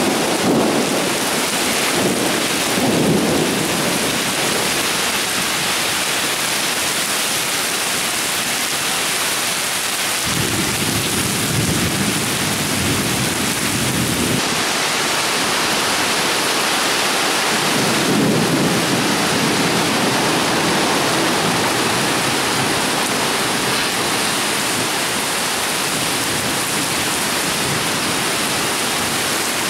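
Torrential rain pouring down steadily, with thunder rumbling low three times: at the start, about ten seconds in and about eighteen seconds in.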